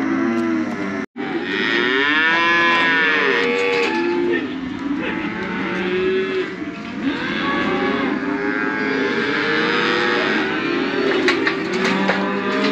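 A herd of cattle penned tightly in a wooden branding chute, mooing and bellowing, many calls overlapping almost without pause, with a brief gap about a second in.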